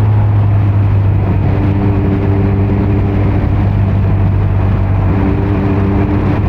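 Kawasaki Z900's inline-four engine running through a Leo Vince muffler on stock headers with no dB killer, held at a steady engine speed. It makes a loud, even low drone with no revving up or down.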